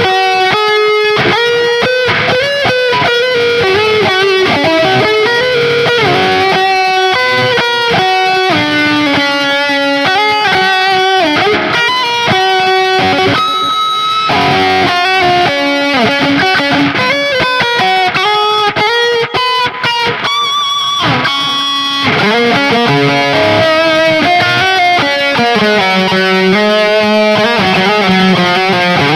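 Electric guitar played through Ibanez STD C1/C2 humbucking pickups on an Ibanez Gio GRGRS22FM, picking a melodic lead line of single notes with frequent string bends and vibrato on held notes.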